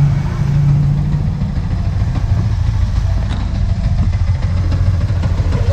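Yamaha Vixion R's single-cylinder four-stroke engine idling steadily during an engine-flush (infus) treatment, in which cleaner fed into the intake is burned off through the exhaust.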